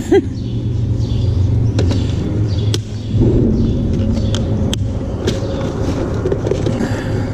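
A steady low rumble, with a few sharp plastic clicks and rattles as a clear plastic tackle box is handled and snapped shut.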